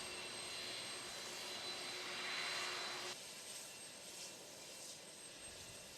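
Jet aircraft engine running: a steady whine over rushing noise. About three seconds in it cuts off abruptly to a quieter hiss.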